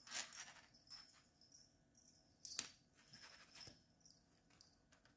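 Faint, scattered light clicks and scuffs of a kitten playing with a fuzzy wand toy on a hard floor, with one sharper click about two and a half seconds in.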